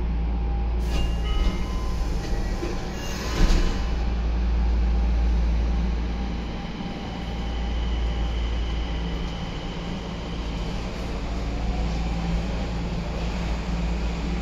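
Nagoya Municipal Subway Meijo Line 2000 series train heard from inside the car: a steady low rumble of wheels and running gear. There is a sharp knock about three and a half seconds in and a faint high tone through the middle.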